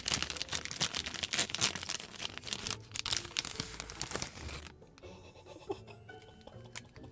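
Oreo ice cream bar wrapper crinkling as it is torn open and pulled back off the bar, stopping about four and a half seconds in.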